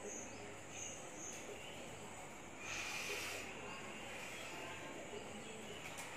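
Quiet ambience with an insect chirping in short, evenly spaced pulses about twice a second, stopping after about a second and a half. A soft hiss lasting about a second comes near the middle.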